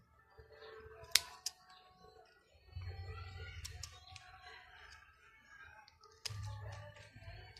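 Scissors snipping leaves off a caimito (star apple) bonsai to defoliate it: several sharp snips, the loudest about a second in, over faint background noise.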